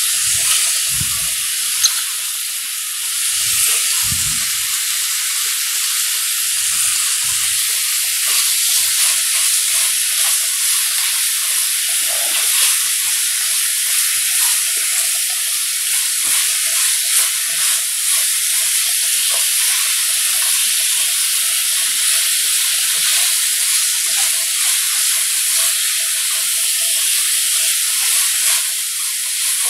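Beef rib meat sizzling on a hot iron griddle, a steady loud hiss, with a few soft low thumps in the first several seconds.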